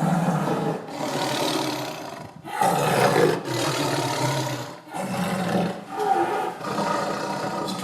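Tiger roaring in a series of rough, rumbling calls with short breaks between them, the loudest about two and a half seconds in.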